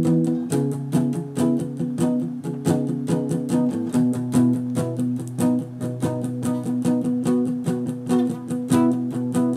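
Guitar music: single notes plucked in a quick, even rhythm, about five a second, over sustained low notes.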